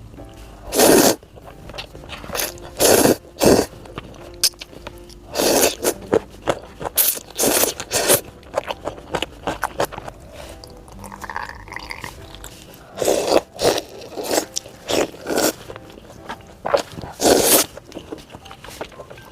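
Crunchy food being bitten and chewed close to the microphone: loud, sharp crunches at irregular intervals, with quieter chewing between them.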